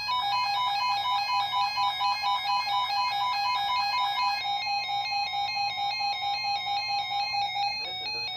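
Electronic alert tones: rapid, repeating beeps in a fast pattern of pitched notes. The pattern thins about halfway through and the beeping stops shortly before the end.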